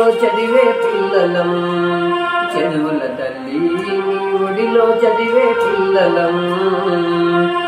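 Background music from a Telugu song: a melody of long held notes that slide from one pitch to the next.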